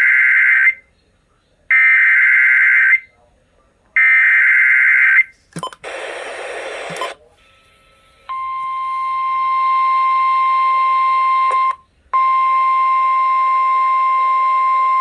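Emergency Alert System broadcast over the radio: three identical bursts of the digital header data, a harsh warbling screech about a second long each, then a click and a second or so of hiss. About eight seconds in the long, steady attention tone starts and holds, broken once by a brief dropout near twelve seconds, signalling that a warning message follows.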